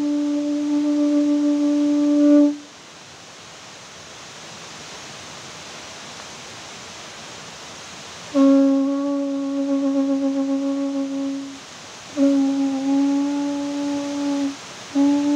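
A horn-type wind instrument blown in long held notes on one steady pitch: one note ends about two and a half seconds in, and after a pause of about six seconds come two more notes of about three and two seconds, with another beginning near the end. Between the notes there is a soft steady hiss.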